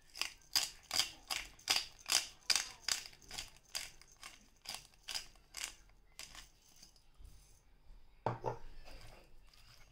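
Handheld pepper grinder being twisted, crunching black peppercorns in about three strokes a second, which taper off after about six seconds. A single knock follows near the end.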